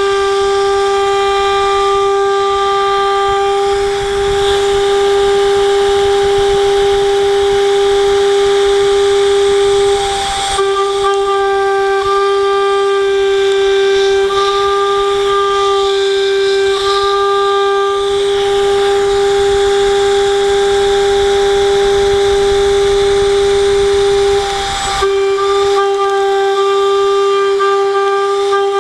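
HSD 10 hp router spindle driving a 1/2" double spiral end mill through 6061-T6 aluminium plate. It makes a steady high whine with overtones over the hiss of the oil-mist coolant nozzles. The whine dips briefly twice, about ten seconds in and again near 25 seconds.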